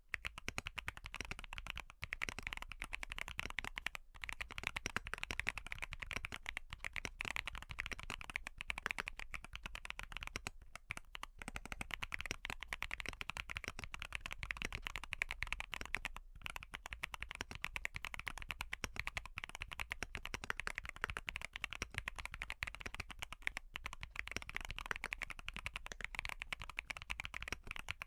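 Steady, fast typing on a Wobkey Crush80 mechanical keyboard with Haimu Sea Wave tactile switches and a full foam build: a dense run of key clacks with only short pauses.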